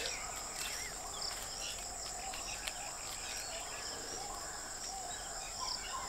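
Insects trilling in a steady high-pitched drone, with faint bird chirps scattered through it.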